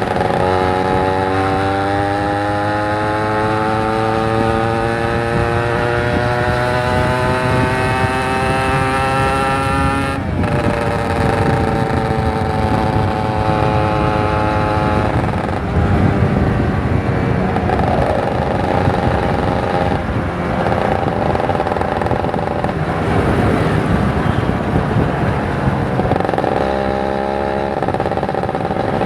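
Kawasaki Ninja 150 RR's two-stroke single-cylinder engine pulling under way, its pitch climbing steadily for about ten seconds. The pitch drops sharply about ten seconds in, then rises and falls with the throttle through the rest.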